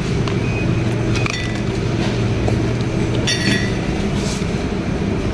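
Supermarket background: a steady low rumble with two bright clinks of glass or metal, about a second in and again just past three seconds.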